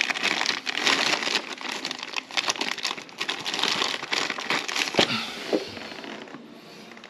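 Crinkling and crackling handling noise with many small clicks, growing quieter near the end.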